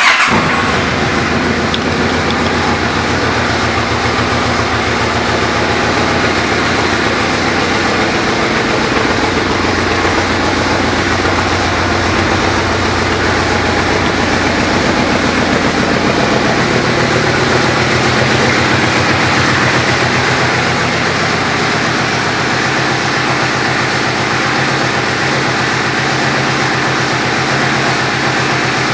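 2007 Yamaha Royal Star Midnight Venture's V4 engine, fitted with an aftermarket exhaust, idling steadily.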